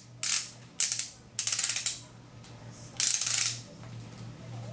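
Twist-up base of a new Revlon Photo Ready eye primer pen being turned to push the liquid primer up to the tip, giving four short bursts of rapid ratcheting clicks.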